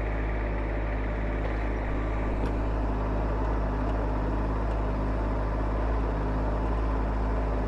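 Kubota SSV75P skid steer's diesel engine running steadily under the operator's control as the grapple works.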